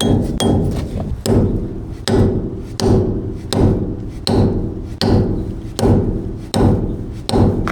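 Hammer tapping a wheel-bearing dust cap into a Ford E-250's front hub: about nine evenly spaced metallic strikes, a little under a second apart, each with a short ring.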